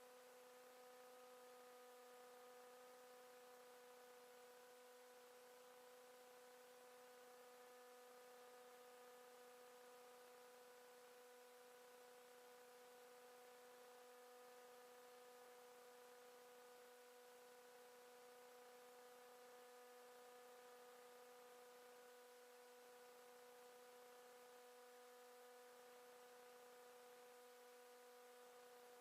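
Near silence: a faint, steady electrical hum with its overtones over a light hiss, unchanging throughout.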